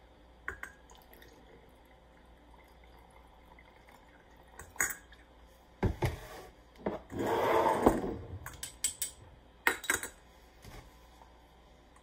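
Sparse clinks and knocks of a metal funnel against a swing-top glass bottle, with about a second of vodka pouring through the funnel into the bottle past the middle.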